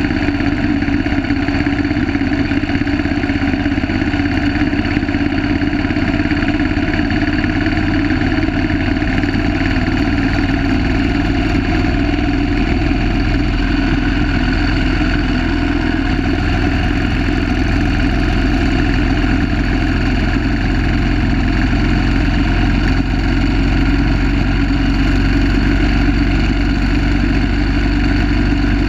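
1930 Terrot 350 HST's single-cylinder engine running steadily under racing load, heard from the bike itself, its note shifting slightly about halfway through.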